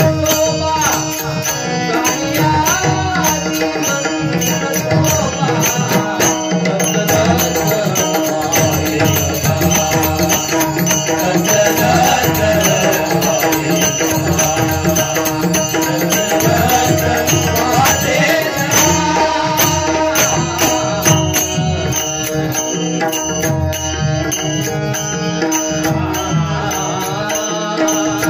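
Male voices singing a Marathi devotional bhajan with hand-drum accompaniment and a steady rhythmic clatter of percussion.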